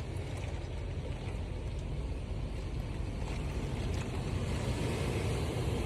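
Hurricane wind blowing steadily, buffeting the microphone with a low rumble that slowly grows a little stronger.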